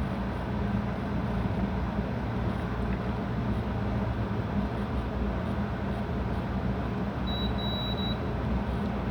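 Clamp meter's continuity beep: a single high, steady beep of under a second near the end, with a brief break in it, showing that the relay's contact pair is closed and conducting. A steady low hum runs underneath.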